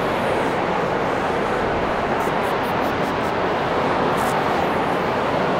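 Paint booth exhaust fans running with a steady rushing noise. In the middle come a few faint, short rustles of a cloth wiped over the primed truck cab.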